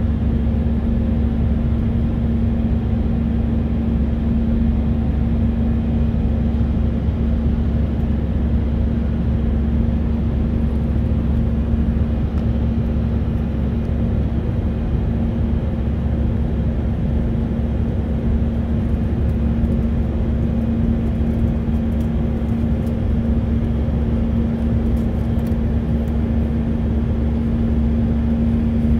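Cabin noise of an Airbus A319-132 in its climb, heard beside its IAE V2500 turbofan engine: a steady, unchanging drone with a deep rumble and a constant hum.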